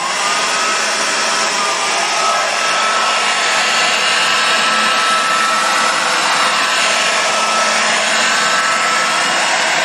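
Handheld hair dryer running at speed: a loud, steady rush of air with a high motor whine. The whine climbs a little in the first couple of seconds, then holds.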